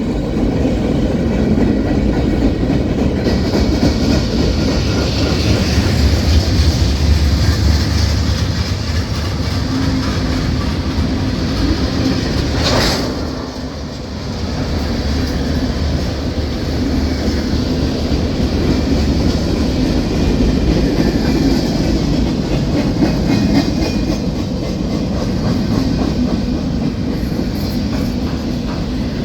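Union Pacific manifest freight train rolling past at close range, with a steady, loud rumble of wheels and cars on the rails. About halfway through there is one sharp knock, and the sound briefly drops before the rumble returns.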